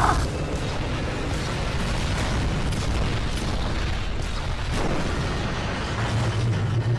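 Battle sound effects from a 3D animation: a continuous rumble of explosions and booms, with a few sharp blasts standing out along the way.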